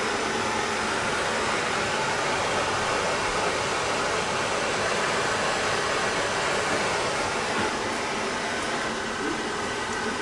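Handheld gas torch burning with a steady hiss as it heats copper pipe fittings for sweat soldering; the sound eases slightly near the end.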